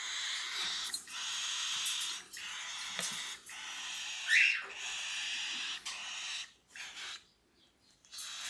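Cockatiel chick begging while being hand-fed: a run of raspy, hissing bursts about a second each, with one short rising squeak partway through. It is the chick's feeding reaction, the sound it makes as it takes food from the syringe or spoon.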